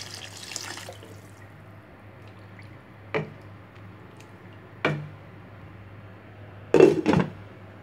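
Water pouring and splashing into a kadai of simmering bean curry, the pour tailing off about a second in. Then a wooden spatula knocks against the pan, once, then again, and twice in quick succession near the end, the loudest.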